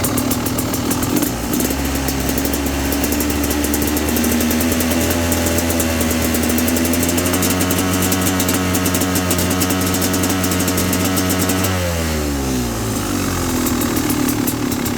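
Motorcycle engine held at a steady, raised throttle for about ten seconds, stuttering and misfiring as it runs, then the revs fall away near the end as the throttle closes.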